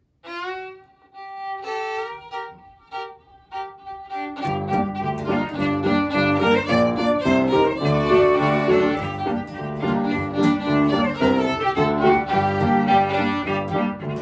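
A solo fiddle plays a short G minor intro. About four seconds in, piano, a second fiddle and acoustic guitar join, and the band plays a lively contra dance tune together.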